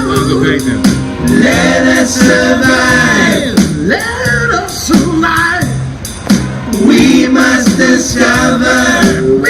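Live song: several voices, men and women, singing together with instrumental accompaniment and a bass line of repeated low notes.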